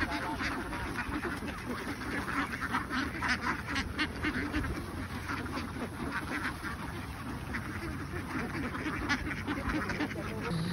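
Large flock of domestic ducks quacking all at once: a dense, steady mass of many overlapping calls.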